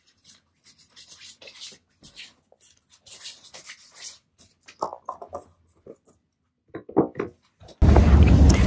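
Soft, intermittent rubbing and rustling of hands working lotion into skin. Near the end a loud, steady outdoor rumble cuts in abruptly and is the loudest sound.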